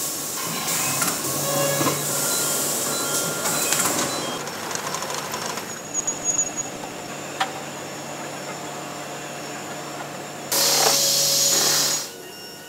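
Oil filling and bottling-line machinery running: a loud hissing rush of air near the start and again for about a second and a half near the end, with a steady hum and scattered clicks in between.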